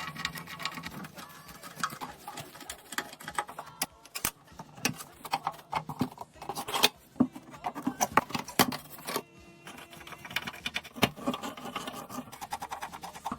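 Irregular clicks and taps of small tools and plastic and metal parts as a car CD head unit is handled and taken apart.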